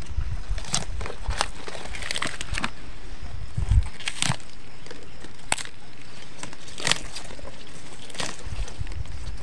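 Irregular crackles and sharp snaps, about a dozen, like dry plant matter being handled, over a low rumble and thumps from the hand-held microphone moving. The strongest thump comes a little before four seconds in.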